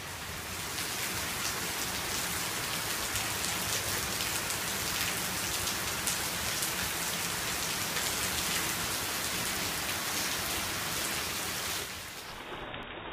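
Heavy downpour, a dense hiss of rain with many sharp drop hits. About twelve seconds in it gives way to a quieter rush of stormwater pouring out of a gutter downspout.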